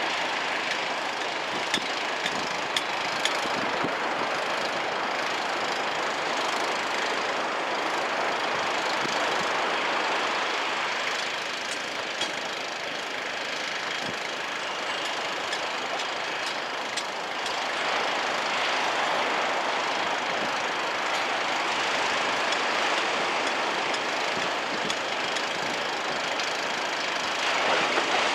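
Small waves breaking on a sandy beach as shore break, a steady wash of surf that swells and eases every several seconds, with a few sharp ticks in the first few seconds.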